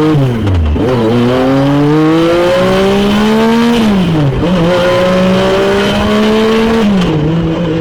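A car engine accelerating hard through the gears: the pitch climbs, drops at each of three upshifts, and climbs again.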